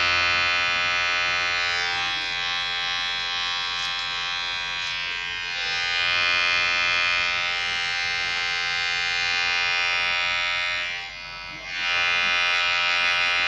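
Electric hair clipper buzzing steadily, with a short dip in loudness about eleven seconds in before it picks back up.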